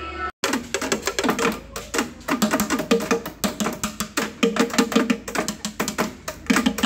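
Background music with fast, busy clicking percussion over low pitched notes, cutting in abruptly after a brief break near the start.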